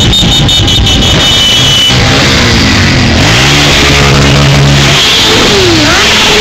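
Motorcycles riding past one after another, their engines revving up and easing off, with the pitch sliding down as each one passes close by.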